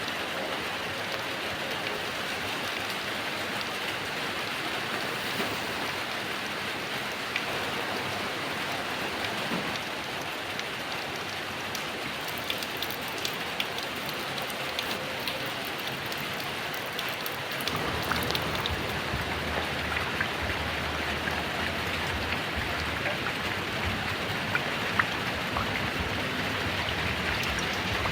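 Heavy rain falling steadily, a dense hiss with scattered sharp drop ticks. About two-thirds of the way through, a low rumble sets in under the rain.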